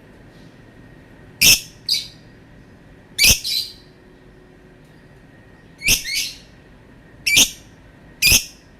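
Lovebird giving five short, sharp, high-pitched calls spread a second or two apart. Three of the calls come as quick double notes.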